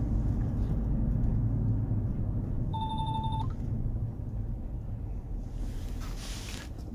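Steady low road rumble inside a moving car's cabin, with one short electronic beep lasting under a second about three seconds in. Clothing rustles near the end.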